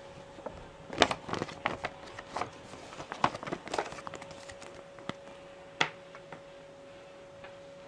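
Paper leaflet being folded and handled, a run of crinkles and small taps, then a single sharp tap later on as the folded booklet meets the wooden table. A faint steady hum runs underneath.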